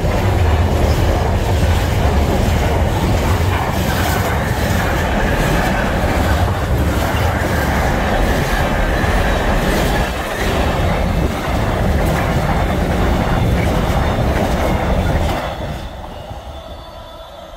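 Container wagons of a Class 66-hauled freight train running past at speed: a loud rumble with a regular knocking of wheels over the rail joints. About 15 seconds in the last wagon goes by and the noise falls away, leaving faint steady tones from the level crossing's alarms.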